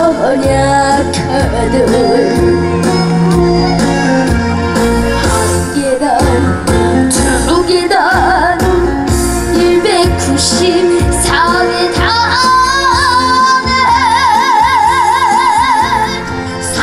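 A young singer singing a Korean trot song over backing music with bass and a beat, holding a long note with wide vibrato near the end.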